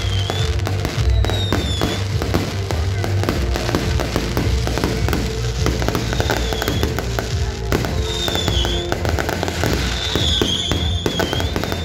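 Aerial fireworks going off in quick succession: a dense, irregular stream of bangs and crackles.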